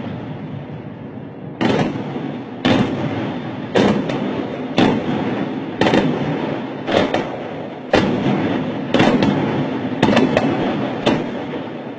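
Explosive charges going off in a building demolition: about ten sharp bangs, roughly one a second, each fading into a rumbling echo.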